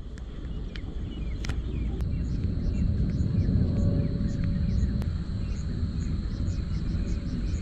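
Outdoor evening ambience of insects, crickets among them: a high steady drone and short high chirps repeating about two to three times a second, under a low rumble.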